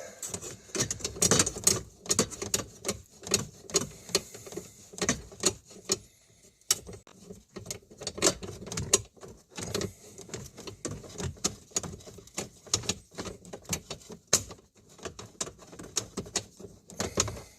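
Irregular metal clicks and clinks of an 8mm wrench working a bracket bolt loose in a cramped space under a car dashboard.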